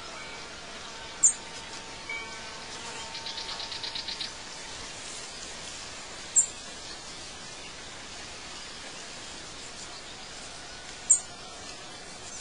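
Birds chirping over a steady hiss: a short, sharp, high chirp about every five seconds, and a quick trill lasting about a second some three seconds in.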